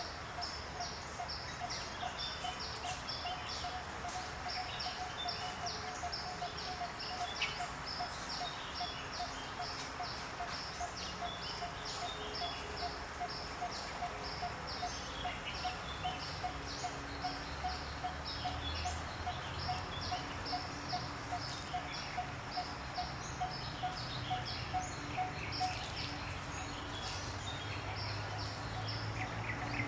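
Forest ambience of birds chirping, with rapid repeated high chirps and a lower call that pulses evenly and stops near the end.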